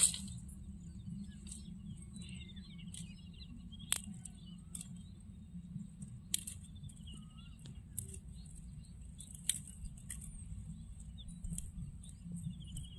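Dry grass stalks cracking and rustling as they are grabbed and pulled by hand, a sharp snap every second or two, while small birds chirp and trill in the background over a steady low rumble.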